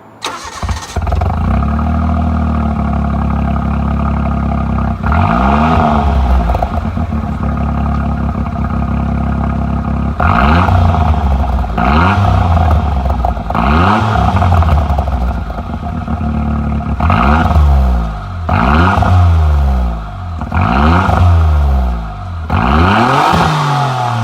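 Suzuki Alto Works exhaust through a Kakimoto Kai aftermarket muffler: the engine starts right at the beginning and idles steadily. From about five seconds in it is revved in repeated short blips, about ten in all, each rising and falling back to idle, coming more closely together toward the end.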